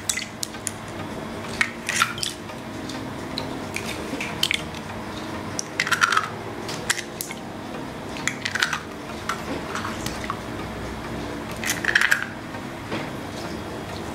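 Raw eggs poured from a small bowl into a glass mixing bowl: a series of wet plops and splashes with light clinks of bowl on glass, coming every one to three seconds.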